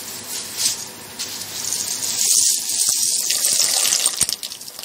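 Pot of water at a rolling boil with macaroni in it, bubbling and hissing; it grows louder about two seconds in and eases off near the end.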